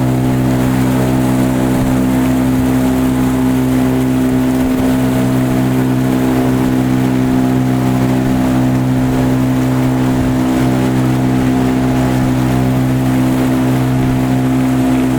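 A motor running steadily at a constant speed, a loud, unchanging hum.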